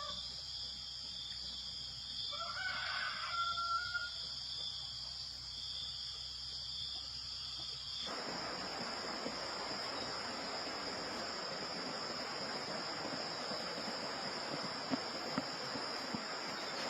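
Steady high insect buzzing outdoors, with a rooster crowing once about two to four seconds in. At about eight seconds the scene switches to a steady rushing noise, like wind on the microphone, while the high insect tone carries on.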